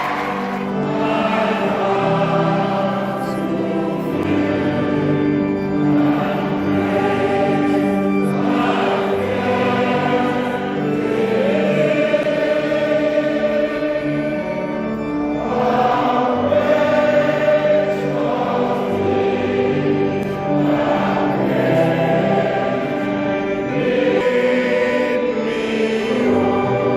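Choir singing a hymn with sustained held notes.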